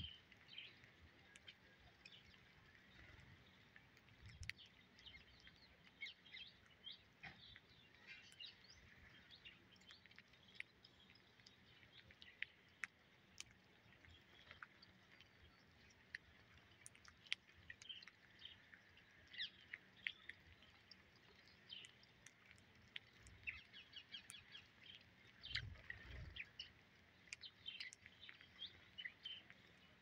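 Faint chirping of house sparrows: many short, high chirps scattered throughout.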